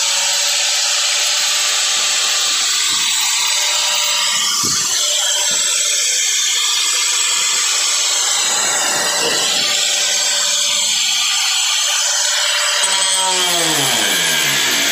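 Electric grinder running steadily as it cuts into the sheet-metal body panel, with a scraping, grinding noise throughout. Near the end the trigger is released and the motor's whine falls away as it spins down.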